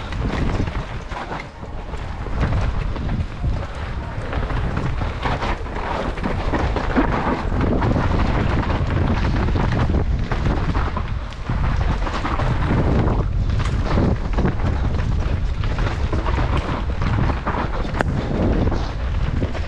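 Wind buffeting the microphone over the low rumble of mountain bike tyres on a rough trail, with frequent knocks and rattles from the bike.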